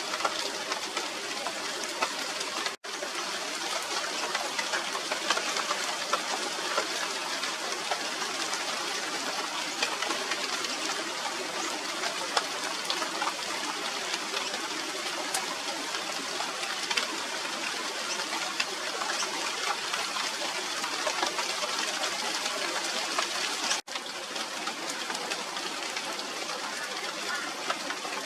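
Steady rain falling on the leaves of a China doll tree (Radermachera sinica): an even hiss with many small pattering drop ticks. It cuts out for an instant twice, about three seconds in and near the end.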